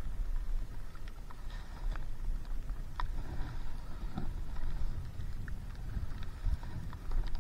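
Paddling a stand-up paddleboard on open water: irregular small splashes and drips from the paddle over a low rumble of wind on the microphone.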